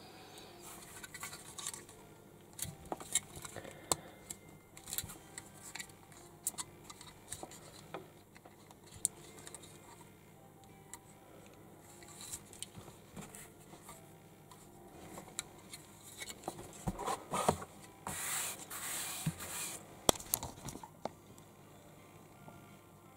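Small plastic building-brick model handled in the fingers: scattered light clicks and taps of plastic, then a stretch of rustling and a sharp knock about twenty seconds in as the model is set down on the table.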